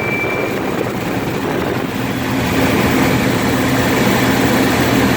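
Cummins NHC-250 inline-six diesel of an M923A1 5-ton truck running at about 1,800 rpm, heard from inside the cab together with the steady rush of the air-conditioning blower. The level rises slightly about halfway through.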